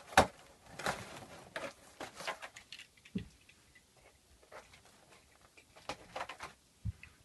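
Cardboard box of vinyl plank flooring being opened by hand: a sharp knock just after the start, then scattered rustling and scraping of cardboard and paper wrapping.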